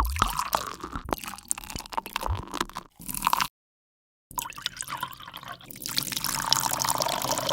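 Water sound effects: a run of drips and small splashes that cuts off after about three and a half seconds, then, after a moment of silence, a second, denser run of dripping water.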